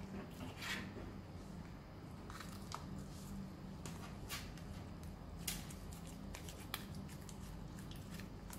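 Marbled slime being worked by hand, stirred with a wooden stick and then squeezed, giving faint, scattered sticky clicks and pops over a low steady hum.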